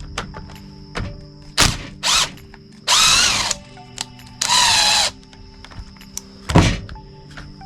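Power drill/driver spinning in two short bursts of about half a second each, backing out screws while a string trimmer is taken apart. Clicks and knocks of plastic parts being handled come in between, the loudest near the end, over faint background music.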